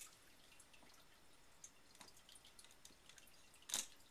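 Hands handling a cardboard product box: faint, scattered small ticks and taps. One louder short brushing sound comes near the end.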